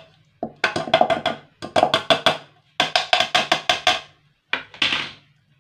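Raw peeled potato being grated on the fine side of a metal hand grater into an aluminium saucepan: quick rasping strokes, about six a second, in short runs with brief pauses between.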